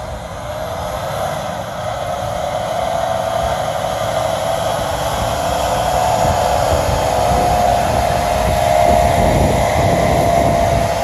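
Dump truck's diesel engine running with a steady whine over a low rumble as the truck creeps along with its bed tipped up, letting out hot paving material; the sound grows steadily louder as the truck draws near.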